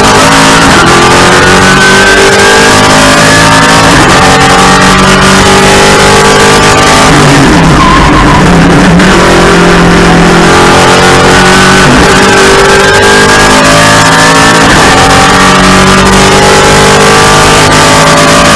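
TA2 race car's V8 engine heard from inside the cockpit, loud and under hard acceleration. The pitch climbs steadily, drops and wobbles with a lift and downshifts about halfway through, then climbs again as the car powers out.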